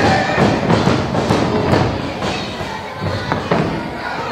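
Several sharp thuds and slaps from wrestlers' strikes landing in the ring, over a steady background din.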